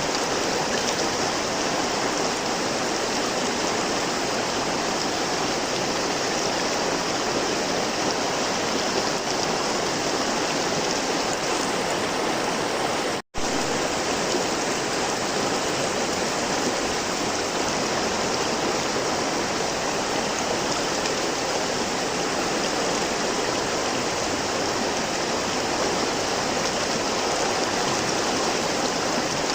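River water flowing in a steady, even rush. The sound cuts out completely for an instant about halfway through.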